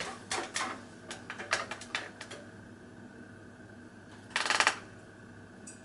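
A quick run of clicks and knocks, then a faint steady hum with a short rattle about four and a half seconds in. The ceiling fan, turning slowly on a solid-state speed control, is too quiet to pick out.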